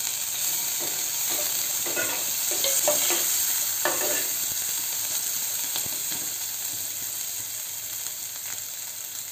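Sliced onions sizzling in hot oil with cumin seeds in a non-stick pan. For the first four seconds or so a steel spoon stirs them, scraping and tapping against the pan. After that only the steady sizzle remains.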